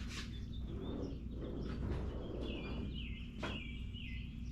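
A bird chirping in a run of short, repeated notes in the second half, over a steady low hum, with two sharp clicks: one near the start and one about three and a half seconds in.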